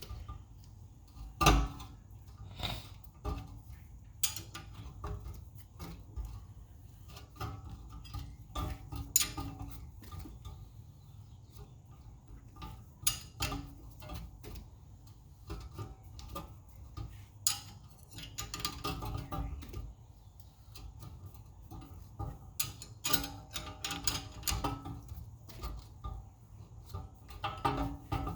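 Irregular metallic clicks and clinks of a 14 mm wrench turning a caliper piston wind-back tool, screwing the Ford Fusion's rear brake caliper piston back into its bore. Two sharper metal knocks come about a second and a half in and near nine seconds in.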